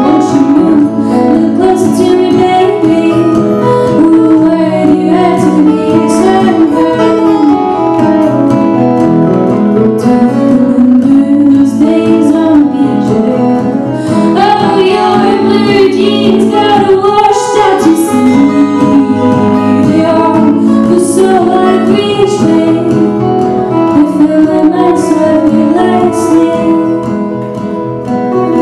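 Live acoustic duo: two guitars played together while a woman sings. Near the end the music drops in level briefly before picking up again.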